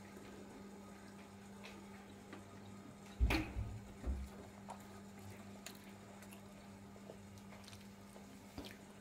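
Quiet room tone with a steady low hum. A dull thump about three seconds in, followed by two softer knocks over the next second, and a few faint ticks.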